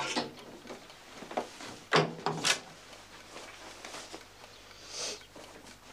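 Painted wooden wardrobe being opened and rummaged: a sharp creaking clunk as the door swings open, then wooden knocks and clunks, the loudest two about two seconds in, and a short hiss near the end.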